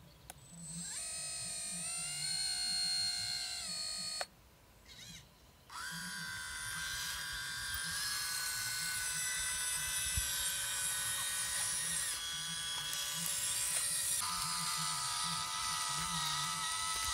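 Hydraulic RC excavator's electric pump motor whining steadily, its pitch shifting as the arm is worked. It cuts out for about a second and a half a quarter of the way in, then starts again, and its pitch steps down near the end.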